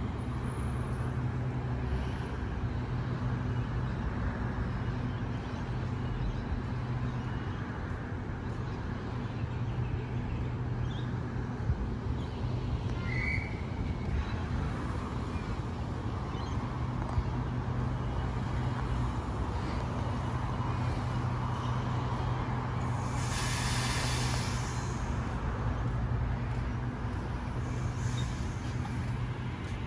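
Waratah double-deck electric train standing at the platform, humming steadily. About 23 seconds in comes a hiss of released air that lasts about two seconds.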